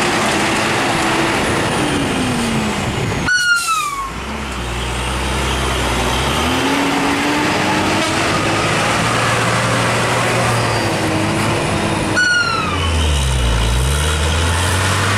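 Heavily loaded diesel dump truck engine labouring up a steep grade at low speed, its deep note slowly rising and falling. Two short falling whistles come from the truck, about three seconds in and again about twelve seconds in.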